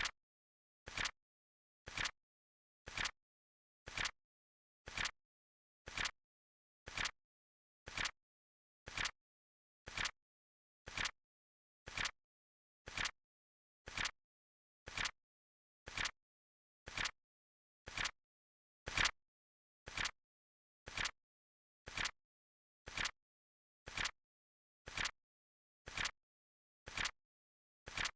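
Flip-clock sound effect: a short flap click every second, like the tick of a flip counter, with silence between. One click, about 19 seconds in, is a little louder than the rest.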